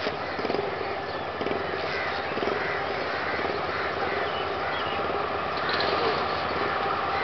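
Diesel locomotive approaching, its engine running with a fast even throb and growing slowly louder.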